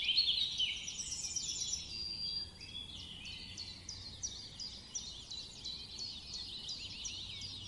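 A chorus of many small birds chirping and calling over one another, busiest and loudest about the first second, then a steady run of quick, sharply falling chirps.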